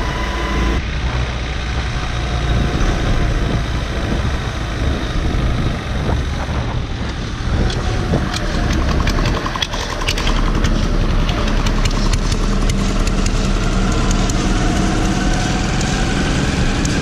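The engine of the vehicle carrying the camera running at road speed under steady wind and road noise, with a run of clicks and rattles about halfway through and the engine pitch rising near the end.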